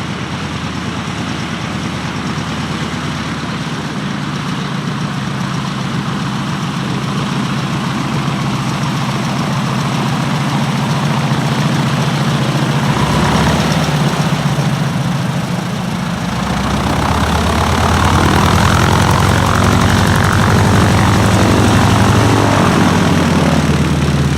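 A Harvard AT-6's nine-cylinder Pratt & Whitney R-1340 radial engine and propeller running steadily at low power, growing louder over the second half.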